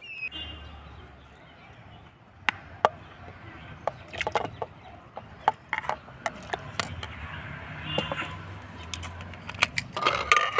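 A knife cutting potatoes over a plastic board, with a string of sharp clicks and knocks, as pieces drop into an aluminium pressure cooker. A chicken clucks briefly at the start and again about 8 seconds in. Near the end the pressure cooker's lid is fitted and locked with a metal clatter.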